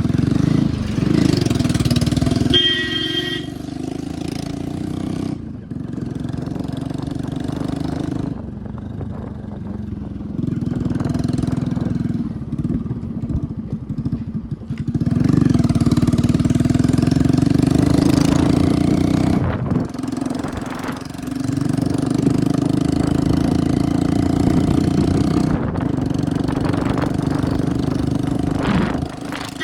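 Small motorcycle engine running on the move, its exhaust note rising and falling with the throttle. A short beep sounds about three seconds in.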